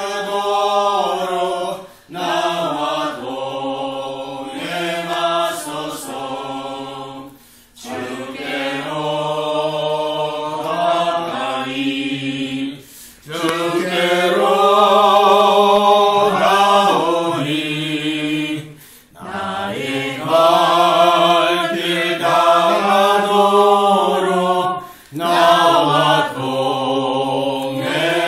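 A small group of men and women singing together unaccompanied, in phrases of several seconds broken by short pauses for breath.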